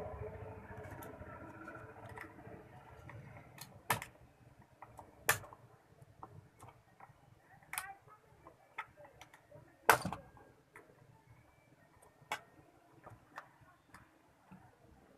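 Scattered sharp clicks and taps of hand tools on a TV power-supply circuit board as diodes are desoldered and removed. The loudest snap is about ten seconds in, with two others around four and five seconds.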